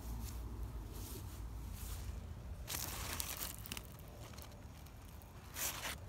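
Rustling of squash leaves and grass as they are brushed, with two louder rustles about three seconds and near six seconds in, over a low rumble of wind or handling on the microphone.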